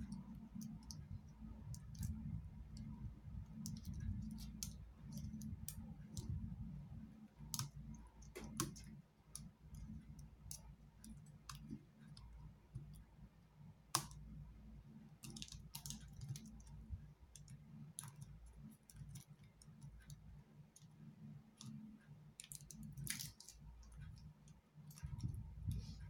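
Scattered light clicks and taps from handling iPad 2 parts, the LCD panel and glass digitizer being fitted back into the housing, with one sharper click about halfway through, over a low steady hum.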